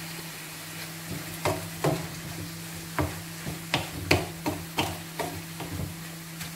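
A spoon stirring beef as it browns in a pot, knocking and scraping against the pot about a dozen times from about a second in until near the end, over a steady low hum.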